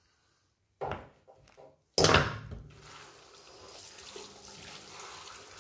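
Water jetting from a barber basin's spray head, starting suddenly about two seconds in and then running steadily onto hands held under it.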